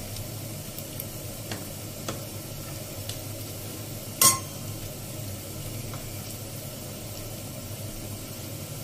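Hot oil sizzling steadily in a pressure cooker for a tadka, with a few light spoon taps and one sharper clink about four seconds in.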